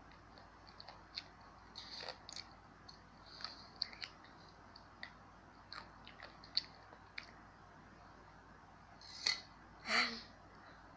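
A child crunching dry Yum Yum Chang Noi instant snack noodles, with small crisp crunches scattered throughout and two louder bites about nine and ten seconds in.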